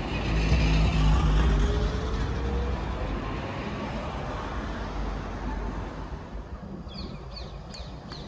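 Alstom Citadis X05 tram going by: a low rumble that is loudest in the first two seconds and then fades, with a faint rising motor whine. A few short, high chirps near the end.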